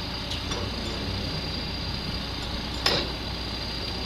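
Steady low drone of an idling truck engine, with a single sharp knock about three seconds in.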